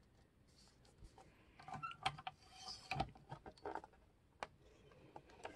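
Soft rustles and light clicks of a paperback book cover being slid and pressed into place on a sliding paper trimmer, with one sharper click about three seconds in.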